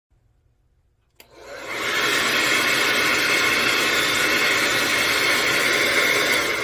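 Joas JHC-3830 hair dryer switched on with a click a little after a second in, its motor spinning up over about half a second to a steady rush of blowing air with a faint high whine.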